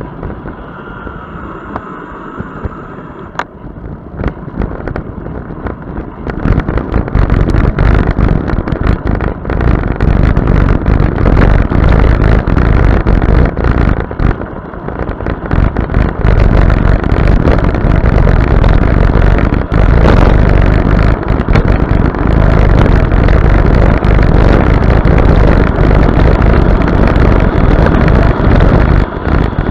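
Wind buffeting the microphone of an action camera on a bicycle speeding downhill: a rough rumbling rush that grows much louder about six seconds in as the bike gathers speed, easing briefly near the middle.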